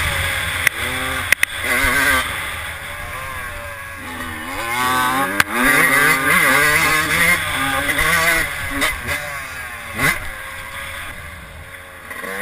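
Yamaha YZ125 two-stroke dirt bike engine being ridden hard, its pitch rising and falling as the throttle is opened and closed, easing off near the end before picking up again. A few sharp knocks come through along the way.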